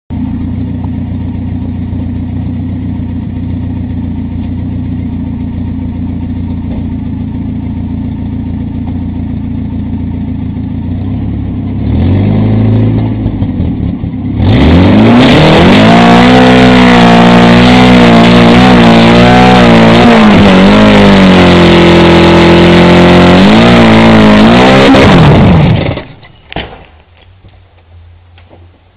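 Dodge Neon's four-cylinder engine idling, blipped once about twelve seconds in, then held at high revs for about eleven seconds in a burnout, its pitch wavering, until it cuts out suddenly as the engine blows. A single sharp click follows.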